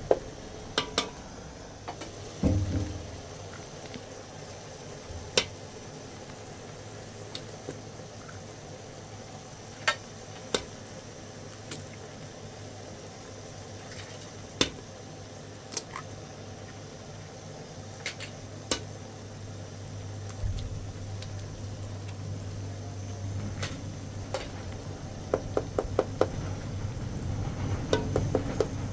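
Scattered sharp clicks and knocks, with one heavier thump about two and a half seconds in, over a steady low hum. A quick run of rapid clicks comes near the end.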